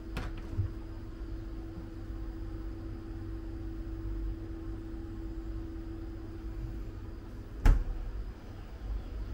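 Small hotel mini fridge door clicking open, then shutting with a sharp thump near the end, over a steady low hum.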